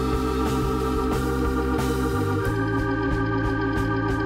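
Background music: sustained organ-like chords over a steady beat, the chord shifting about two seconds in.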